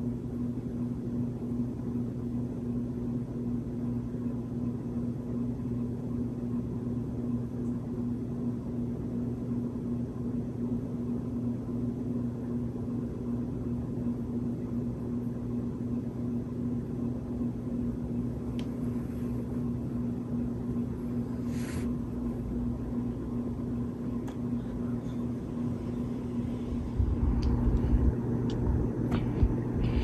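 Hampton Bay Wellston 44-inch ceiling fan running: a steady low motor hum over a soft rush of air. A low rumble comes in and gets louder near the end.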